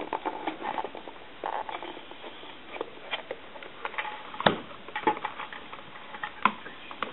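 Scattered clicks, taps and small knocks of a desk telephone's parts being handled and fitted back together, with the sharpest knock about four and a half seconds in.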